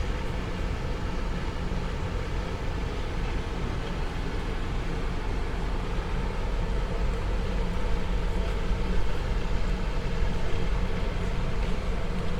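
Steady city street noise: a low rumble of traffic, growing a little louder in the second half.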